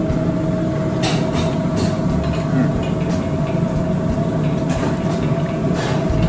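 Steady drone of commercial kitchen equipment around a lit gas range, with a held hum under it. A few light clinks of metal kitchenware come about a second in, around two seconds, around three seconds and near the end.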